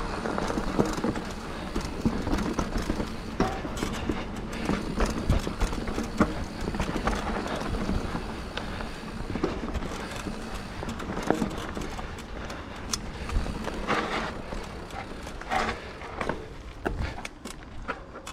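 Scott Genius 950 full-suspension mountain bike ridden on a rough dirt trail: a steady rumble of tyres on dirt with frequent sharp knocks and rattles from the bike over bumps.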